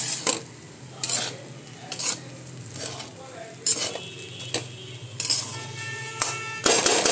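Metal spatula scraping and stirring flattened rice (chira pulao) in a kadai, in short strokes about once a second, with a faint sizzle underneath.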